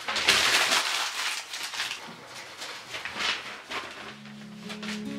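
Paper being crumpled and rustled by hand in irregular bursts as it is packed into a wood stove's firebox to light a fire.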